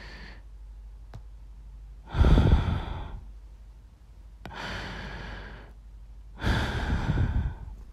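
A woman breathing heavily close to the microphone: three long, breathy sighs about two seconds apart, the first the loudest and the middle one softer.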